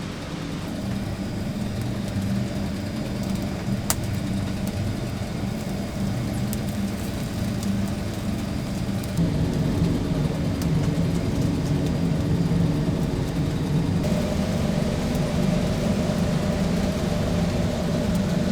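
A steady low machine hum with a few faint clicks, growing a little louder about nine seconds in.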